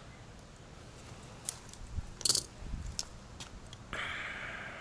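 Pliers clicking and snapping against a plastic wiring-harness connector as a heavily corroded terminal is broken out, in a run of sharp clicks with the loudest a quick cluster in the middle. A brief scraping sound follows near the end.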